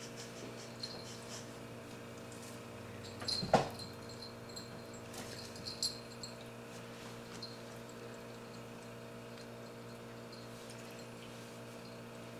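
A black cat moving about on a carpeted cat tree, with faint scattered ticks and one short, loud sound about three and a half seconds in, then a smaller one near six seconds.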